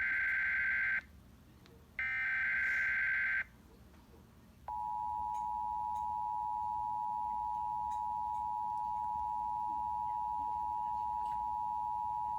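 Emergency Alert System test: two short bursts of the warbling SAME data header, then from about five seconds in the steady two-tone EAS attention signal (853 and 960 Hz played together), held to the end.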